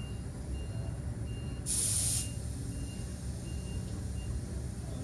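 A short hiss of air about two seconds in, over a steady low rumble, while a beach-cruiser bicycle tire is being pumped up.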